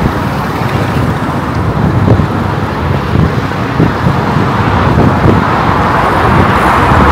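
Road traffic: cars driving by in a steady rumble, with one vehicle's tyre noise swelling near the end.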